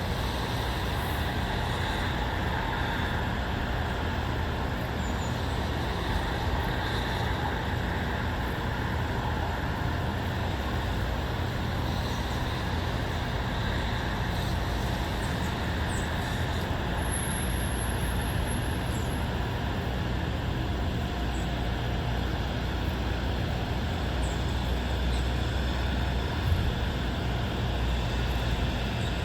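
Steady background hum of distant road traffic, an even rumble with no single vehicle standing out.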